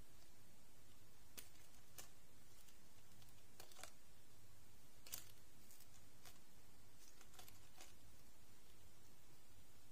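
Faint, scattered clicks and light rustles of hands handling a plastic Tinker Bell fashion doll and its stiff plastic wings, the sharpest click about five seconds in, over a steady low hum.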